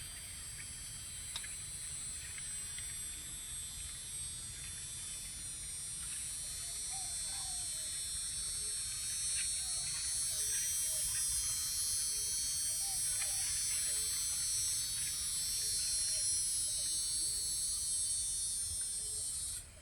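Cicadas buzzing in a dense, high, steady chorus that grows louder about halfway through and stops abruptly near the end.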